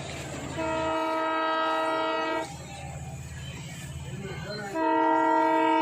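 Indian Railways train horn sounding two steady blasts, the first about two seconds long and the second starting near the end, over a steady low rumble.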